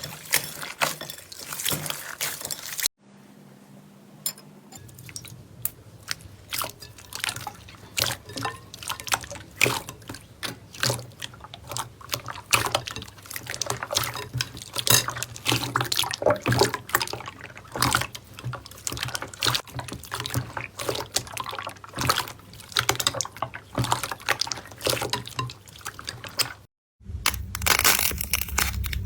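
Slime being squeezed and worked by hand: irregular wet clicks and pops. There are two short silent breaks, about three seconds in and near the end, with a low steady hum under the clicks in between.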